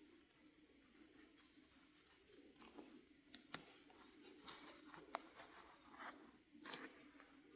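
Faint hand sewing of quilt fabric: short scratchy pulls of needle and thread through the cloth, with a few small sharp ticks, in a slow running stitch.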